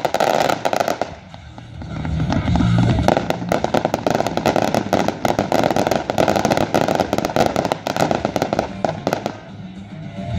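Aerial fireworks going off: a dense, rapid crackling and popping of many small bursts, easing briefly about a second in, building again, then dying down near the end.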